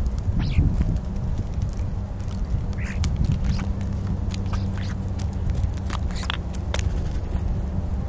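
European starlings feeding at close range. There are many sharp pecking clicks and a few short, harsh calls: one falls in pitch about half a second in, another comes near the middle, and a couple more come later. A steady low rumble lies underneath.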